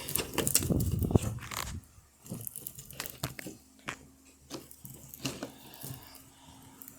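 Butter slime being squished and worked by hand, giving off a run of small irregular clicks and pops. They are louder for the first two seconds or so and fainter after.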